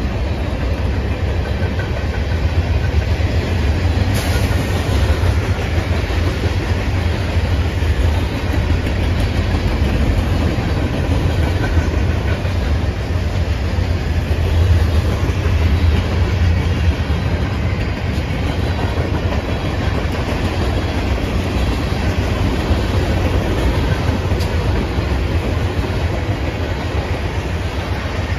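CSX freight train's tank cars and covered hoppers rolling past close by at speed: a steady, loud rumble and rattle of steel wheels on rail.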